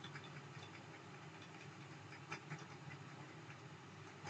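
Very faint room tone with a low steady hum and a few scattered soft clicks and taps from handwriting input on a computer whiteboard.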